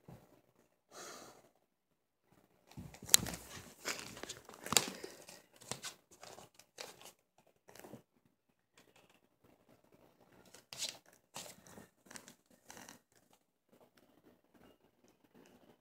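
A cat's claws scratching and scuffling on a rug as it paws and pounces at a cockroach: irregular bursts of scratchy rustling with sharp clicks, loudest in two spells, quiet in between.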